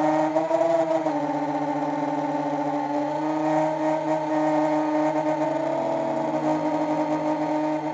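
FPV quadcopter's electric motors whining steadily. The pitch rises and dips a little with the throttle, most noticeably about half a second to a second in.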